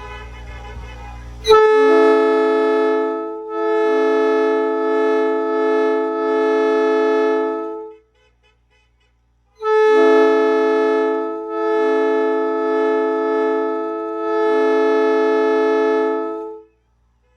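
Multi-chime locomotive air horn, which the owner has been told is a Nathan P5, sounding a steady chord in two long blasts of about six and seven seconds, each wavering in loudness a couple of times, with a pause of about a second and a half between them. The first blast starts abruptly about a second and a half in.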